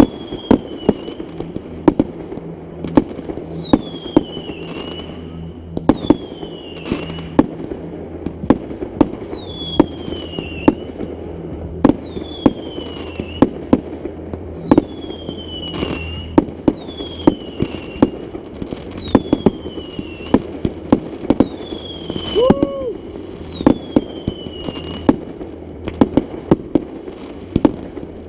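Fireworks display: a rapid series of sharp bangs and reports, with a falling whistle roughly every second and a half.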